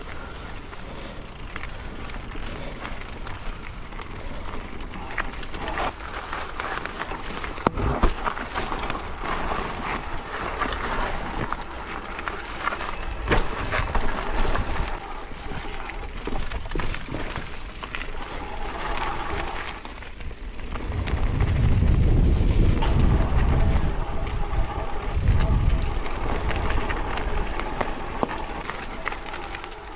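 Mountain bike riding down a rocky forest trail: tyre noise with the bike clattering over stones and roots in many small clicks and knocks. About two-thirds of the way in, a loud low rumble of wind buffets the helmet camera's microphone for a few seconds.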